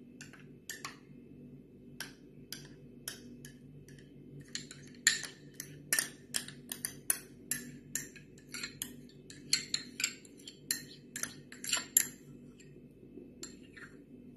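A spoon clinking and scraping against a small glass bowl as creamy dressing is scraped out onto a salad: a run of sharp, irregular clinks, a few a second, busiest and loudest through the middle.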